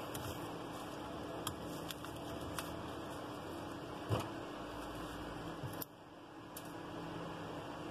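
Light clicks and taps from handling a smartphone's internal mainboard cover as it is pressed into place, with one louder tap about four seconds in, over steady background hiss with a faint hum that drops suddenly near six seconds in.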